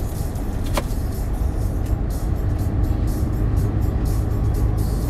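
Steady low rumble of a lorry's engine and tyres on a wet road, heard from inside the cab while cruising at a constant speed.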